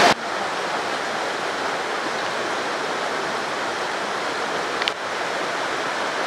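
Steady rush of floodwater running in a torrent and across a washed-out road, with one brief sharp click about five seconds in.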